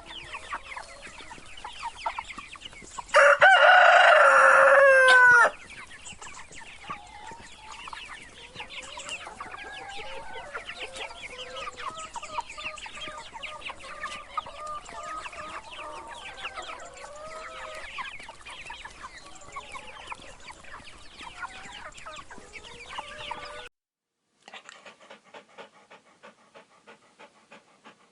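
A rooster crows once, loud, about three seconds in, followed by a long stretch of chickens clucking. Near the end the sound cuts off and a dog starts panting in a steady rhythm.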